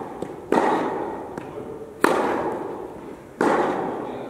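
Tennis ball struck by rackets in a rally, three sharp hits about a second and a half apart, each ringing out in the echo of an indoor tennis hall.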